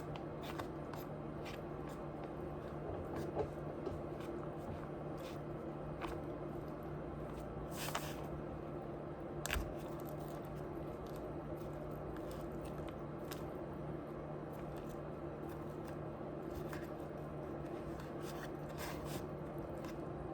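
Close-up eating sounds: chewing with wet, squishy mouth noises and scattered sharp clicks, over a steady low hum.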